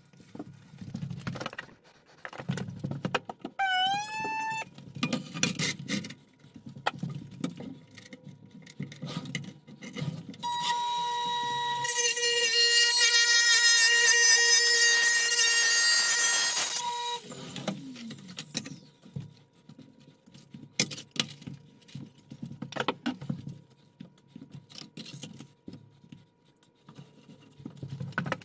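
Electric tile saw motor starting about ten seconds in and cutting through a large porcelain tile for several seconds with a loud steady whine, then winding down. Clicks and knocks from handling tiles and tools come before and after the cut.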